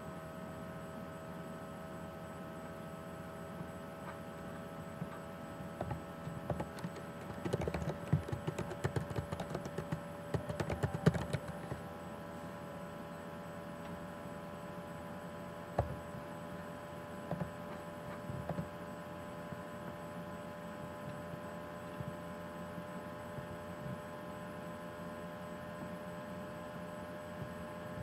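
Typing on a computer keyboard in a short burst about a quarter of the way in, followed by a few single clicks, over a steady electrical hum made of several constant tones.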